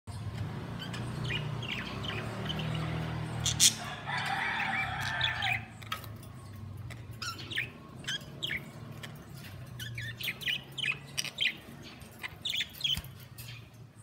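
A cage of budgerigars chirping and chattering: a warbling stretch about four seconds in, then many quick, sharp chirps. A single sharp click just before the warbling is the loudest sound.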